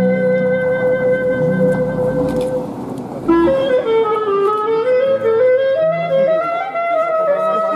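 Music from a woodwind instrument. It holds one long note for about three seconds, then plays an ornamented melody that steps down and back up, with lower accompanying notes underneath.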